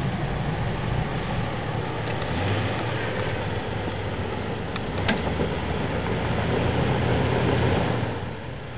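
Jeep Wrangler engine running under load as it crawls slowly over a rock ledge, getting a little louder towards the end and then easing off.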